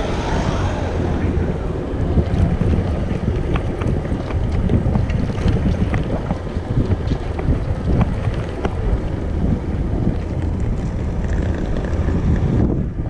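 Wind buffeting the microphone of a handlebar-mounted camera on a moving electric wheelchair bike attachment: a loud, steady low rumble with scattered small clicks.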